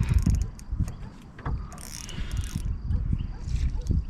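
Fishing reel being wound with a ratchet-like clicking as a hooked fish is brought to the net, over irregular low knocks and rumble.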